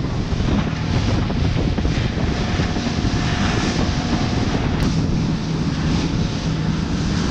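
Suzuki 50 hp outboard motor running steadily at cruising speed, with the hiss of spray and water rushing past the hull.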